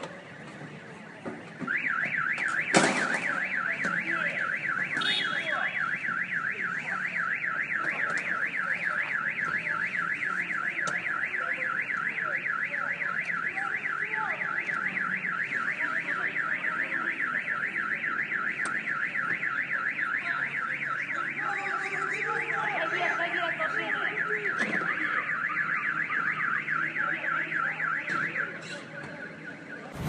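Car alarm siren warbling, a tone swinging quickly up and down several times a second, starting about two seconds in and cutting off shortly before the end. There is a single sharp knock a second after it starts.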